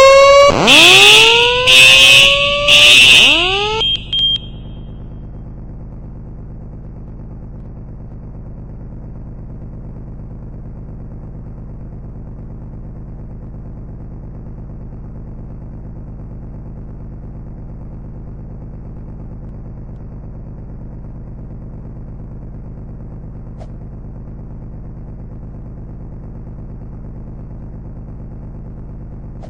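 Fire alarm sounding rising whoop tones about a second apart over a shrill steady tone, cutting off about four seconds in. A steady low hum carries on after it.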